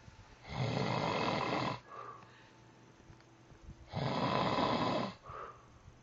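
Man snoring heavily in his sleep: two long, loud snores about three seconds apart, each followed by a short, softer breath.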